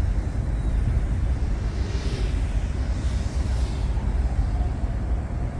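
A 5-inch FPV quadcopter on Foxeer Donut toroidal propellers whirring in flight, with a rush of higher prop noise that swells between about two and four seconds in. A steady low rumble of wind on the microphone runs underneath.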